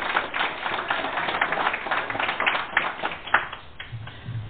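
A small group of people applauding, the clapping thinning out and dying away about three and a half seconds in.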